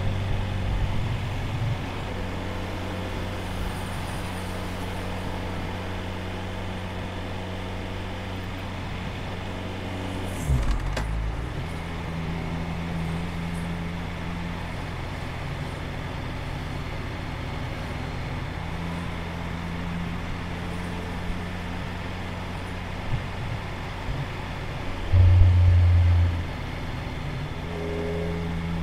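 Motorcycle engine running steadily under way, with road and wind noise. The engine note shifts briefly about ten seconds in, and a louder low surge lasts about a second near the end.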